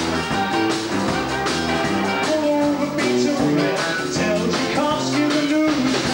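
Live rock and roll band playing: electric guitars over a steady drum beat.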